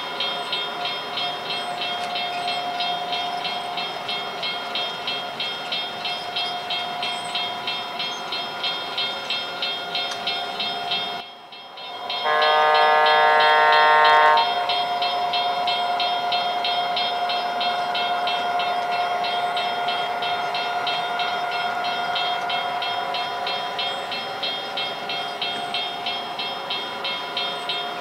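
O-scale model diesel train's sound system running through a grade crossing: a steady running sound with a rapid, regular ringing bell, then, after a brief sudden dip about eleven seconds in, a loud two-second horn blast.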